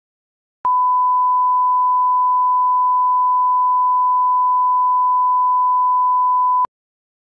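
Broadcast line-up tone: the standard 1 kHz reference tone that runs with colour bars, a single pure steady beep. It switches on with a slight click about half a second in and cuts off just as sharply about six seconds later.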